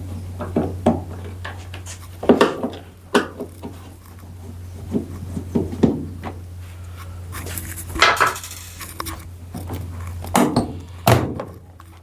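Scattered knocks, clicks and scrapes of hand tools against hard plastic and metal as screws are taken out and the top cover of a Samsung top-loading washing machine is worked loose, with a brief scraping rush about eight seconds in.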